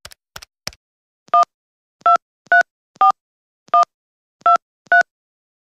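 Touch-tone telephone keypad dialing: three quick clicks, then seven short two-tone beeps as a seven-digit number is keyed in.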